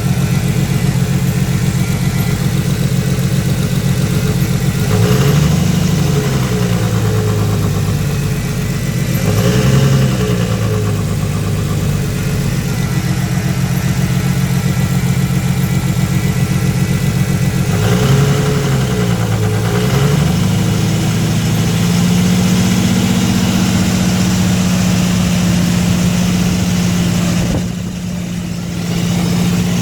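Nissan Skyline RB25DET Series 2 turbocharged inline-six idling with a strange noise, revved briefly three times with the pitch rising and falling each time, then held steady a little above idle. The noise showed up on the first start after eight months of sitting and, per the owner, goes away once the revs pass 2,000 rpm.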